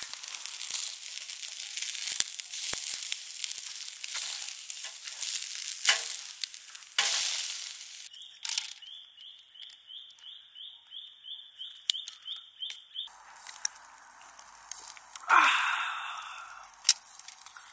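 Meat sizzling and crackling on a wire grill over hot charcoal, with sharp clicks of tongs on the grate. About eight seconds in it gives way to a quieter stretch with a run of short high chirps, about two a second.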